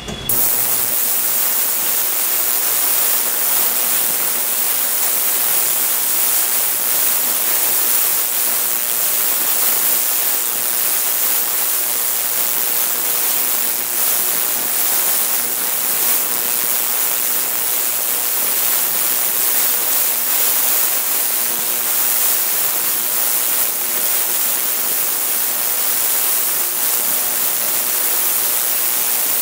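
Ultrasonic cleaning tank switching on just after the start and then running steadily: an even, bright hiss of cavitation in the cleaning solution.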